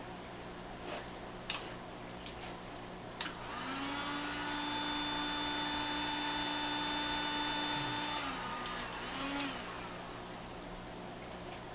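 Heat gun switched on with a click, its fan motor whining up to speed, running steadily for about five seconds, then winding down; a second brief spin-up and spin-down follows about a second later.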